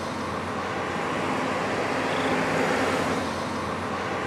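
Steady, even rushing background noise with a faint low hum underneath.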